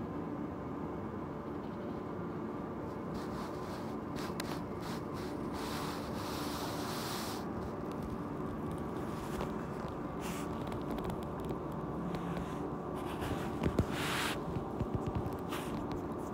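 Steady room hum with a few soft rustles and clicks; a brief hiss about midway and a couple of sharp knocks about three quarters through.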